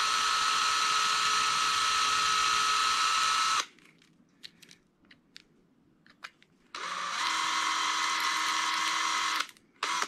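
Cordless drill spinning a twist bit into the rivet of a die-cast toy car to drill its head off: a steady whine for about three and a half seconds, a pause with a few faint clicks, then a second steady run of about two and a half seconds and a brief burst near the end. The rivet head peels off under the bit.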